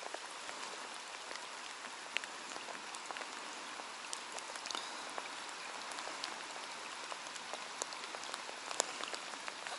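Steady rain falling on the water, an even hiss with scattered small drop ticks.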